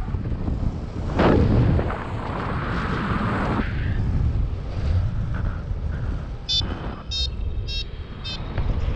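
Wind buffeting the microphone in low, rumbling gusts, strongest about a second in. Near the end come four short high-pitched beeps, a little over half a second apart.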